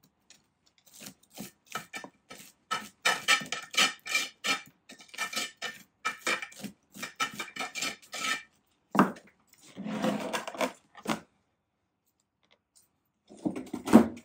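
A hand tool scraping and clicking against the inside of a thin bonsai pot as a root-bound black pine is pried loose. It comes as quick runs of sharp clinks with a ringing tone from the pot, then a heavier knock, a scrape, a pause and another burst near the end.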